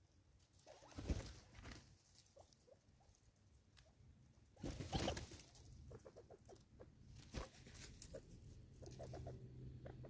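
Birds feeding on a wooden stump of crushed maize in dry leaf litter: faint scattered pecking taps and scrabbling, with two louder rustling flurries about a second in and about five seconds in as a southern red-billed hornbill and spurfowl arrive.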